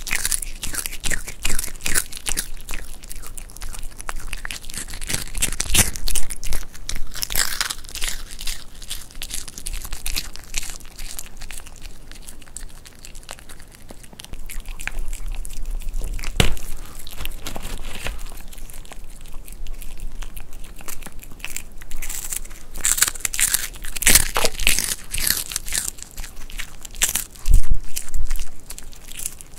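A white Pomeranian crunching and chewing dried vegetable chips. Bouts of crisp crunches come with short quieter pauses between mouthfuls.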